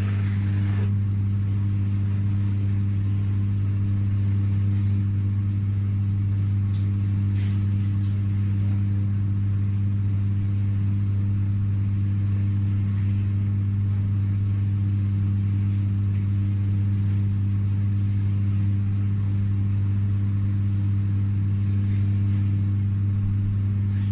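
Shoe finishing machine running with a steady low hum, its cotton buffing mop spinning while a leather shoe is polished against it.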